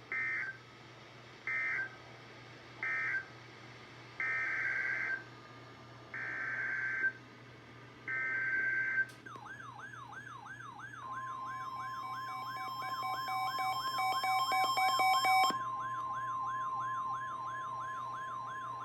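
Emergency Alert System SAME data bursts on weather radio: three short screeching bursts, then three longer ones. About nine seconds in, a fast warbling siren-like alert tone starts, and a couple of seconds later the steady NOAA Weather Radio attention tone joins it. A second stepped chirping tone sounds briefly before both alert tones run on.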